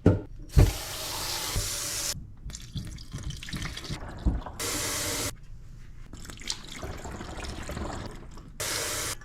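Water poured from a pitcher into a portable countertop dishwasher's water tank, in several pours that start and stop abruptly, with a couple of knocks.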